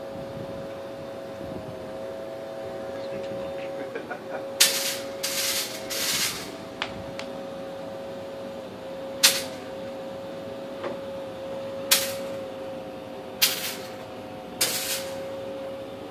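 A steady hum with a slight wobble in pitch, broken by about seven short, sharp hissing bursts of spray a few seconds apart.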